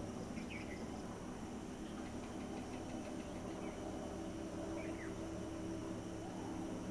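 Forest ambience: a steady low hum with faint insect ticking in the middle and two faint, short, falling chirps, one near the start and one about five seconds in.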